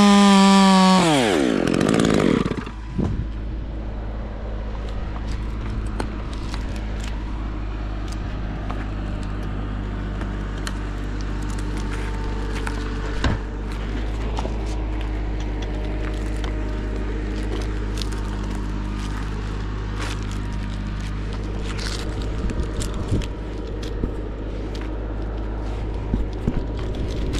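Top-handle chainsaw at full throttle, then let off about a second in so the revs fall away to a steady idle. Small clicks and scrapes of climbing hardware and gloves on bark run over the idle.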